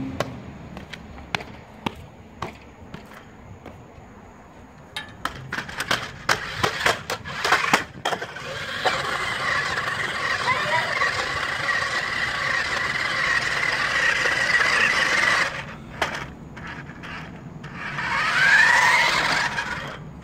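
Toy remote-control stunt car clattering down concrete steps in a quick run of hard knocks, then its small electric motors whining steadily with the wheels rumbling on the concrete for several seconds. A rising whine near the end as the car speeds up again.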